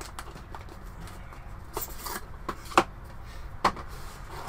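Hands handling and opening a cardboard box: cardboard rubbing and sliding, with several sharp taps and clicks. The loudest tap comes nearly three seconds in.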